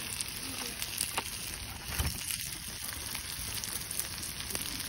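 Food sizzling in cast-iron skillets over a campfire: a steady hiss with scattered small pops and crackles, and a dull knock about two seconds in.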